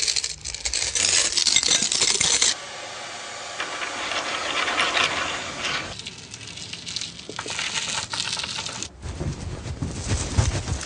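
Many loose coins jingling and clinking together: a dense clatter for the first couple of seconds, then a thinner, scattered clinking. About nine seconds in, a low rumbling joins the clinks.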